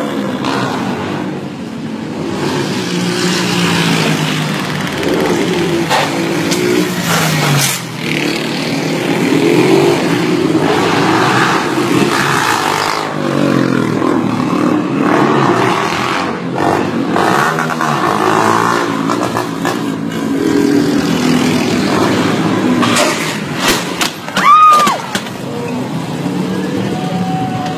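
Motorcycle engines revving hard and repeatedly, rising and falling in pitch as riders pull wheelies past. About three seconds before the end comes the loudest moment: a short burst with a few sharp knocks and a rising shout.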